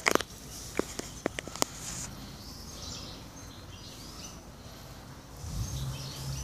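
Cats eating wet food from a clay dish and a plastic tub: a sharp knock at the start, then a quick run of clicks and taps over the next two seconds. Faint bird chirps sound behind, and a low hum comes in near the end.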